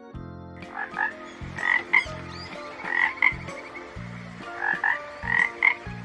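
Frogs croaking: short calls that come in pairs and small clusters, a group every second or so.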